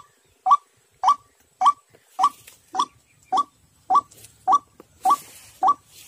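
White-breasted waterhen lure call played through a small speaker: a short rising 'kwak' note repeated steadily, nearly two a second.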